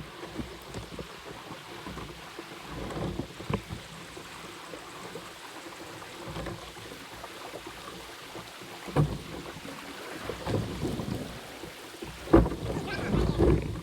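Low rumbling outdoor noise with scattered hollow knocks and water sounds from a fishing kayak on the water, the loudest knocks about nine seconds in and near the end.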